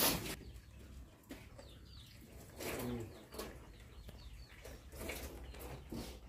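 Chickens clucking faintly now and then, with one louder cluck about three seconds in and small bird chirps between.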